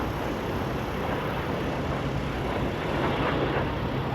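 Airplane engine noise: a steady, even rush without a clear pitch.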